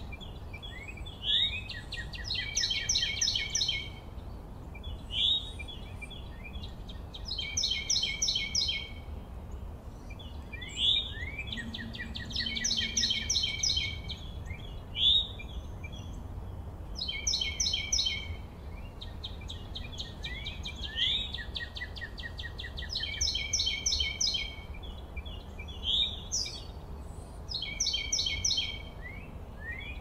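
Songbirds singing in the background: a short, rapid trilled song repeated every two to three seconds, each led in by quick rising chirps.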